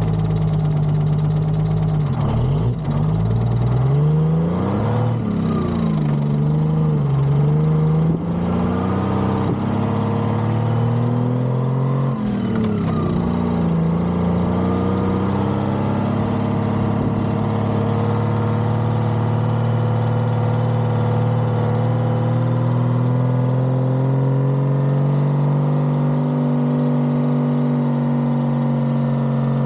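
Detroit Diesel 6-71 two-stroke engine of a 1978 Peterbilt cabover semi truck, revving up and dropping back several times in the first half, then running steadily with its pitch slowly climbing.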